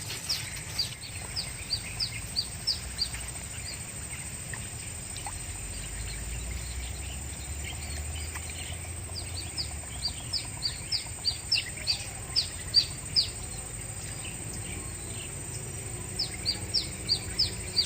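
A bird calling a series of short, sharp down-slurred chirps, about two to three a second, in runs with a quiet gap in the middle, over a faint steady high hum.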